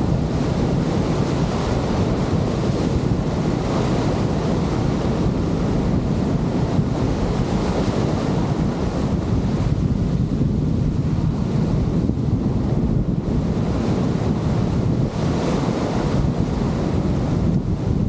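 Breaking surf and foaming whitewater washing close by, with strong wind rumbling on the microphone. The rush of the water swells and eases every few seconds as waves come through.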